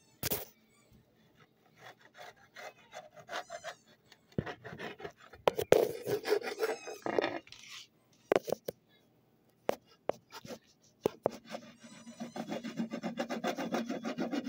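Handling noise on a phone's microphone as it is moved and covered: scattered sharp knocks and irregular scraping and rustling, ending in a fast run of rubbing strokes.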